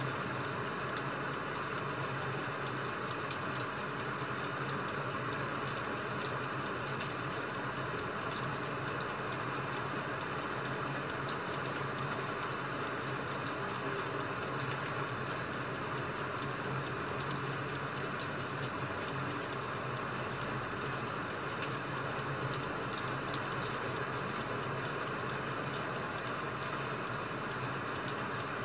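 Steady rain-sound ambience, an even hiss of falling rain, with small scattered crackles of burning firewood.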